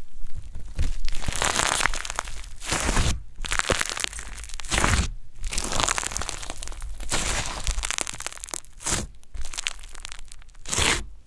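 Yellow slime being stretched, squeezed and pressed by hand, crackling and squishing in waves with short pauses between handfuls.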